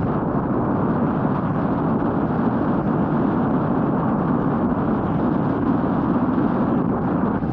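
A Royal Enfield Meteor 350 motorcycle on the move: a steady, loud rush of wind over the microphone with the engine running underneath.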